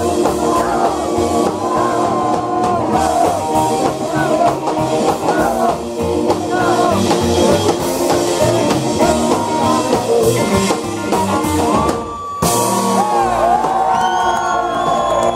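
Live rock and roll band playing: upright double bass, electric guitar and drum kit behind a male singer. The song breaks off about twelve seconds in, and the crowd cheers and whoops.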